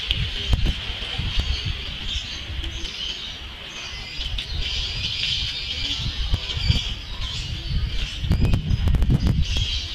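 Wind rumbling unevenly on the microphone while moving along a street, with birds chirping over it. A short cluster of clicks and knocks comes about eight seconds in.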